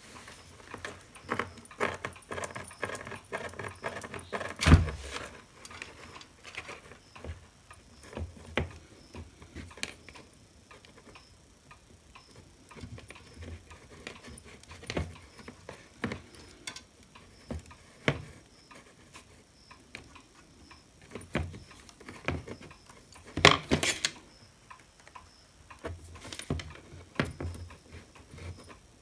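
Irregular clicks, taps and light scraping of small tools against the plastic parts of a hot air gun handpiece as thick hot glue is picked away, with a louder knock about five seconds in and two sharp clicks near the end.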